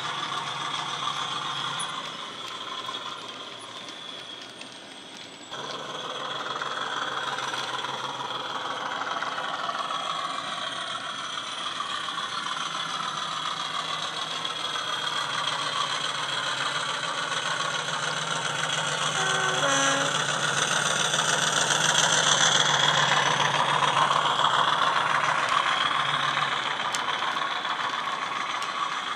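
Hornby Class 50 model locomotive's ESU sound decoder playing a diesel engine with turbocharger whine, through a small passive-radiator speaker, with the rattle of model wagons on the track. It drops off for a few seconds near the start, then grows steadily louder as the model comes round and eases off slightly near the end.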